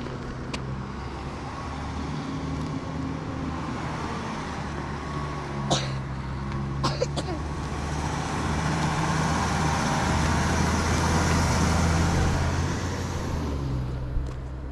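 A motor vehicle running, a low engine hum under road and tyre noise that grows louder to a peak about ten to twelve seconds in and then dies away. A few sharp clicks sound partway through.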